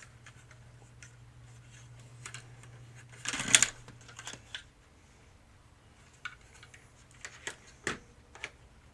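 Scattered light plastic clicks and taps from a screwdriver working the tabs of a hard plastic toy helicopter body, with one louder crackling snap about three and a half seconds in.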